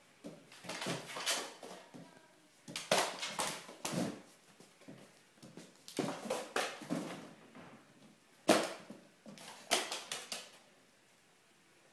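A ridgeback puppy scrambling and leaping on a tiled floor while it plays with a balloon: irregular bursts of claws clicking and scrabbling on the tiles, with knocks and bumps.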